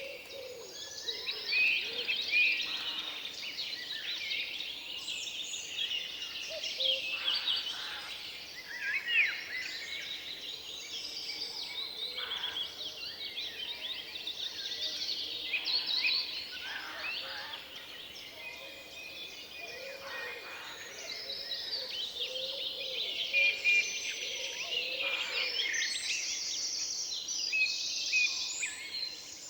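Forest birds singing in a dense chorus, many overlapping chirps and short whistled phrases, over a faint steady background hush.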